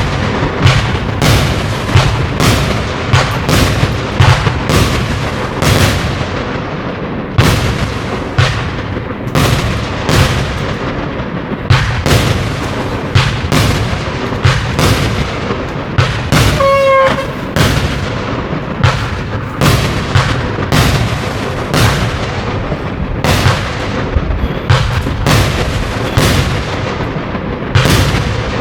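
A 25 mm fireworks battery firing shot after shot: sharp launch thumps and aerial bursts follow each other about once or twice a second over a constant low rumble. A short whistling tone sounds about two-thirds of the way through.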